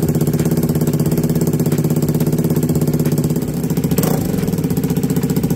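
KTM Duke 390's single-cylinder four-stroke engine idling steadily with an even, rhythmic beat, run briefly to warm the oil so it drains more easily.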